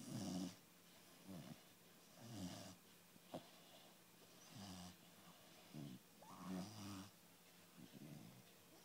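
Chocolate Labrador puppy snoring softly in its sleep, a short snore roughly every second, with one faint click about three and a half seconds in.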